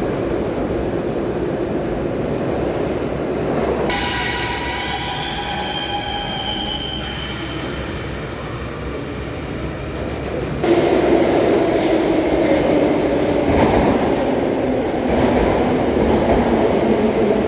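Metro train rumbling in an underground station, with high wheel squeal for a few seconds about four seconds in, then a louder rumble with a low whine from about eleven seconds.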